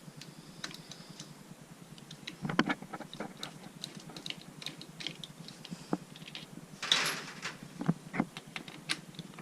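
Irregular light clicks and metallic clinks of hand tools and small metal parts being handled during engine work, with a brief louder scraping rattle about seven seconds in.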